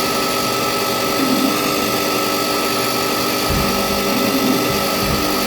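CNC mill-turn lathe running with its live-tooling spindle driving a small chamfer tool that cuts V-shaped deburring chamfers into the grooves of a Delrin part. It makes a steady whine over a constant hiss, with a couple of brief low thumps about three and a half and four and a half seconds in.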